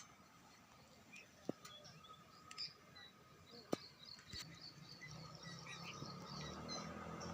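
Faint outdoor ambience: repeated high chirping, with a few sharp clicks and a low hum that builds through the second half.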